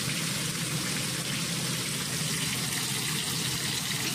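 Oil sizzling steadily around a whole chicken deep-frying in a skillet.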